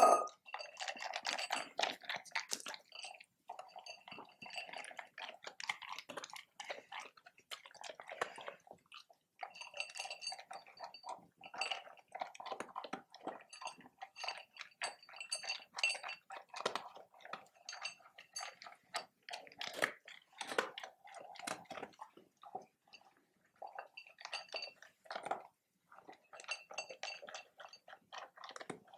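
A dog eating, chewing its food in quick, irregular clicky bites, with a few short pauses.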